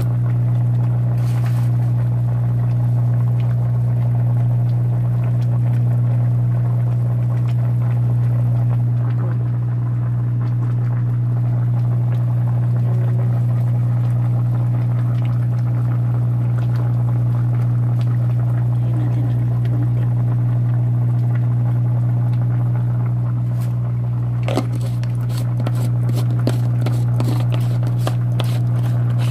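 Steady low hum from a kitchen appliance running beside a simmering pot. A run of quick ticks, about four a second, joins it near the end.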